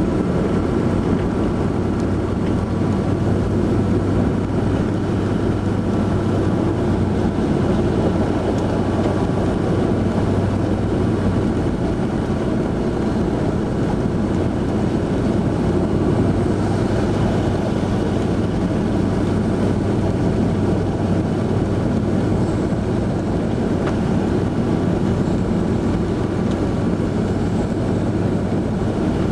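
Vehicle engine droning steadily with tyre and road noise while driving on a snow-covered road, heard from inside the cabin.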